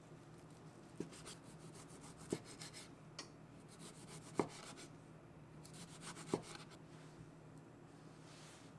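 A kitchen knife sawing through a ripe tomato on a wooden cutting board: a quick run of rasping strokes for each slice, ending in a sharp knock of the blade on the board. Four slices, about two seconds apart.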